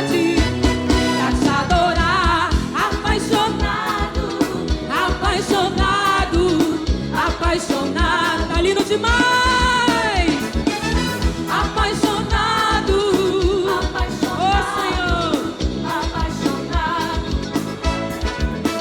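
Live forró band music: a steady drum and percussion beat under bending melodic lead lines, with one long arching phrase about halfway through.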